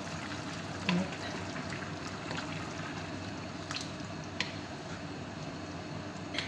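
A wooden spoon stirring rice and chicken in a pot of liquid, with a handful of light, sharp knocks of the spoon against the pot over a steady hiss.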